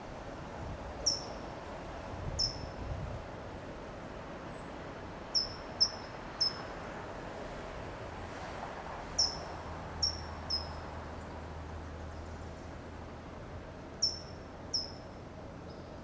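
California towhee giving short, sharp, high 'tsip' calls, about ten in all at irregular gaps of a second or more, some in quick twos and threes; each note drops slightly in pitch.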